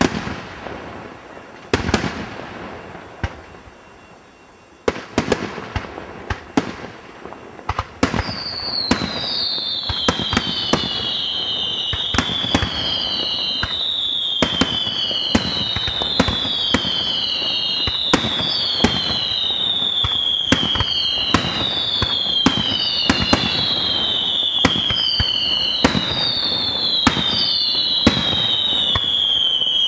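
Aerial fireworks display: shells burst with sharp bangs, and each of the first few bangs trails off. From about eight seconds in, a continuous run of overlapping falling whistles starts, a new one roughly every second, with bangs going off through it to the end.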